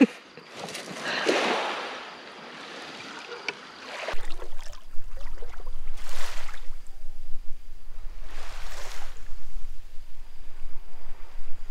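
Small sea waves lapping and washing over a shallow pebble shore, swelling twice in the second half, over a steady low rumble.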